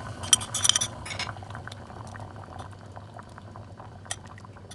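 Creamy mushroom sauce in a hot pan: a few light clinks of a glass measuring cup and utensil against the pan in the first second or so, then scattered soft pops and crackles as the sauce starts to bubble.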